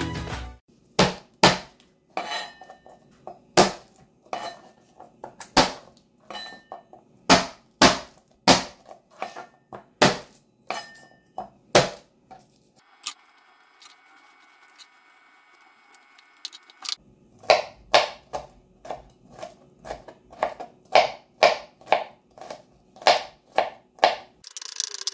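Chef's knife knocking on a plastic cutting board while garlic cloves are crushed and cut: irregular sharp knocks, a quiet pause of a few seconds partway through, then steady mincing strokes at about two and a half a second.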